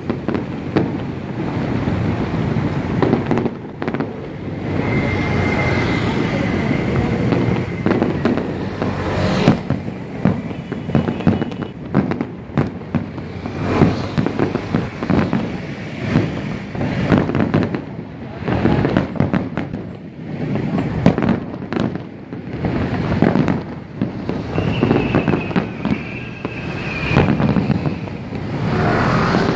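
Fireworks display: aerial shells bursting in a rapid, irregular barrage of booms and crackling. A high, slightly falling whistling tone sounds twice, a few seconds in and near the end.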